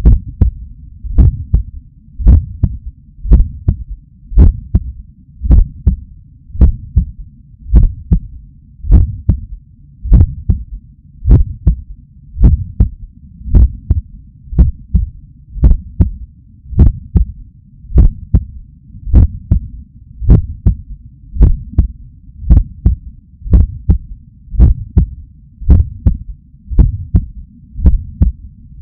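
Human heartbeat picked up by a Stemoscope digital stethoscope pressed to the chest: steady, regular beats at about one a second, heard as dull low thumps with sharp valve clicks in each beat.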